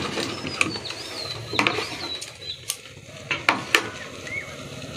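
Domestic sewing machine clicking and rattling irregularly, half a dozen sharp clicks over a low mechanical noise, as the cloth is shifted under the presser foot rather than stitched in a steady run.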